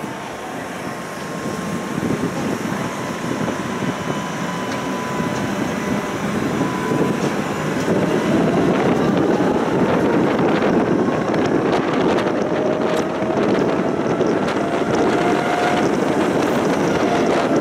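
A tram running along its tracks, heard from inside: a steady rumble of wheels on rail that grows louder about halfway through, with a thin whine that slowly rises in pitch.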